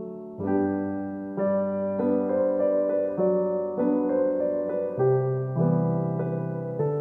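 Background piano music: a slow, gentle melody of single notes and chords, each ringing and fading.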